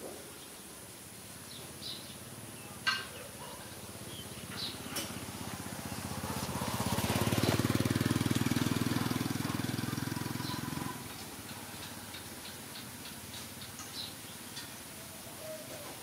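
A small motorbike engine passing by. It grows louder from about four seconds in, runs loudest for a few seconds, then drops away sharply. Short high bird chirps sound throughout, with a single sharp click about three seconds in.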